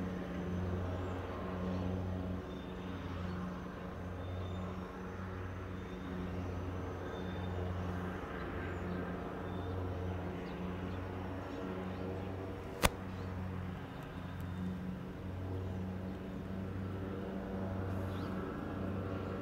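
A low, steady droning hum that swells and fades about once a second, with one sharp click about thirteen seconds in.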